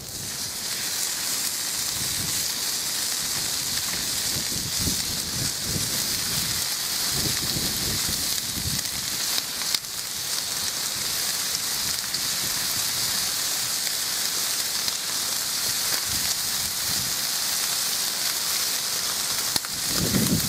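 Bacon strips sizzling on a preheated Weber 7542 cast iron griddle on a gas grill: a steady crackling hiss that starts as the first strip goes down and holds as more strips are laid on.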